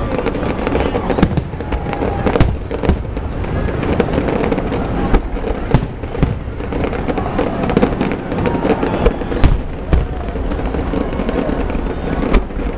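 Fireworks display: aerial shells bursting in an irregular series of loud bangs over a continuous rumble.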